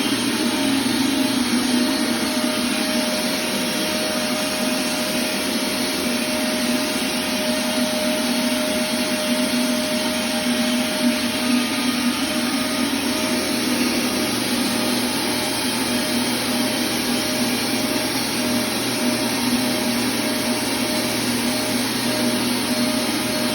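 Hot-air welding gun for vinyl flooring seams running steadily: a continuous blower hum over a broad hiss of air.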